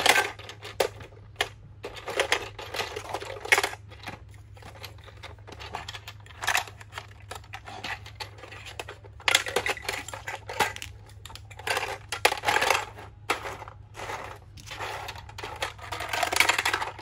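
Plastic shape blocks clattering and rattling as they are pushed through the shape-sorter holes of a plastic toy bus and drop inside. They come in irregular bursts of knocks and rattles.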